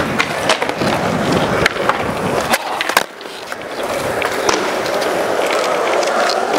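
Skateboard wheels rolling over a concrete skatepark surface, with a few sharp clacks of the board. A loud clack comes about three seconds in, after which the rolling drops away and builds again.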